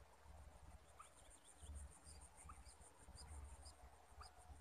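Insects trilling in a steady, high-pitched pulsing drone, with short bird chirps every second or so and an uneven low rumble underneath.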